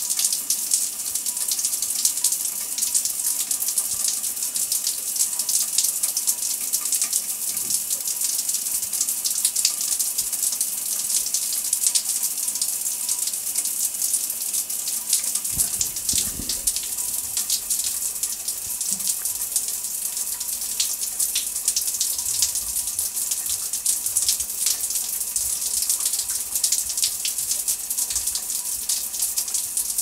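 Shower running, a steady hiss of water spray heard from behind a drawn shower curtain. A brief low thump about halfway through.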